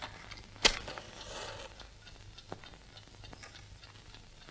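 A single sharp knock, like a small object set down hard on a table, less than a second in. After it come faint rustling and a few light clicks.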